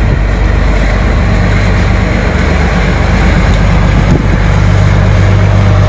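A boat engine running steadily, a loud low drone with a hiss over it.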